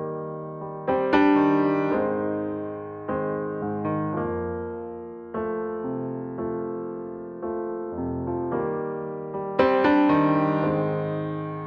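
Background music: a slow, gentle piano melody, its notes struck about once a second and left to fade, with fuller chords about a second in and again near the end.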